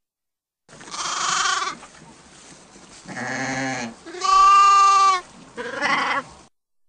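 Sheep bleating four times with short pauses between; the second bleat is lower-pitched, and the third, about four seconds in, is the loudest.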